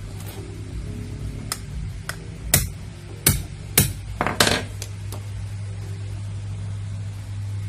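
A hammer taps the jaws of pliers clamped on a brass zipper stopper, crimping the stopper tighter onto the zipper of a pair of jeans. There are about seven sharp metal-on-metal taps in quick succession, starting about a second and a half in and ending before five seconds.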